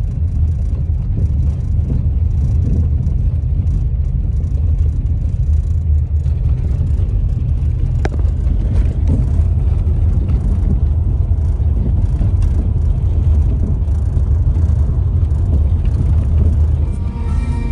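Steady low rumble of a car being driven, heard from inside the cabin: road and engine noise.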